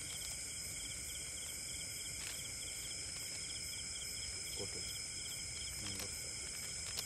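Steady chorus of insects, a high continuous hiss with a fast pulsing trill beneath it, with a couple of faint knocks.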